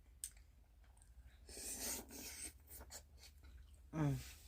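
Eating sounds from someone chewing lobster: scattered small clicks and a rustling, scraping sound lasting about a second, starting about a second and a half in.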